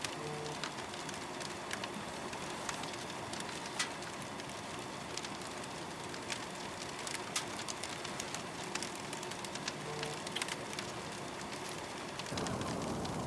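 Firewood crackling and popping in a wood-burning stove: a steady low hiss with sharp pops at irregular intervals. The hiss grows louder near the end.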